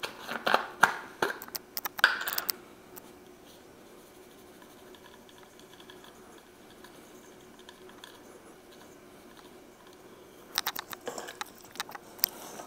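Seasoning shaken from a shaker bottle onto raw chicken: two short spells of quick, irregular clicks and scratches, one at the start and one near the end, with a quiet stretch between.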